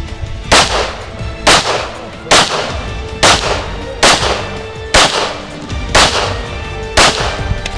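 Glock 22 pistol in .40 S&W firing eight sharp shots about a second apart, with background music underneath.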